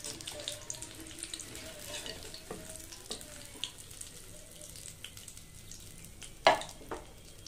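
Hot oil sizzling and crackling in an iron kadai as fried samosa rolls are lifted out on a slotted steel skimmer. About six and a half seconds in there is one sharp knock, then a smaller one.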